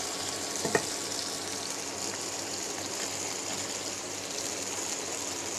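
Chopped tomatoes, green chillies and ginger and chilli pastes sizzling steadily in hot oil in a nonstick wok while the spice base is fried down, with one short knock less than a second in.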